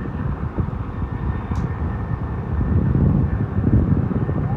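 Turbine helicopter flying past low after takeoff: dense, fluttering rotor chop with a steady high whine above it, swelling slightly near the end.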